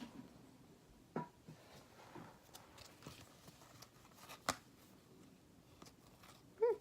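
Trading cards being handled and flipped through: faint rustling with two sharp card snaps, about a second in and again past the middle. A short vocal sound comes near the end.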